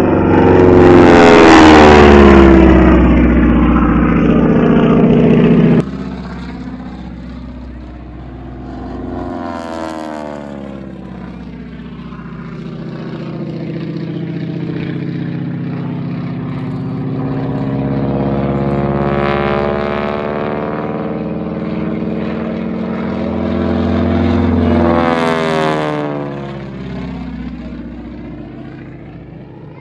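Propeller-driven piston-engine airplanes. One runs loud and close for the first few seconds until a sudden cut. After that, aerobatic planes make several passes overhead, the engine drone swelling and dropping in pitch as each one goes by.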